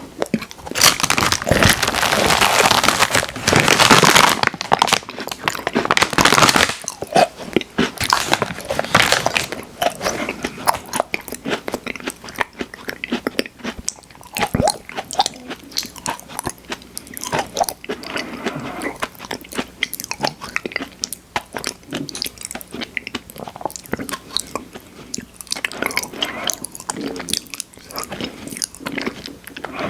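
Close-miked crunching and chewing of Oreo cookies, loudest and densest in the first few seconds, then settling into quieter, steady chewing with small crackles.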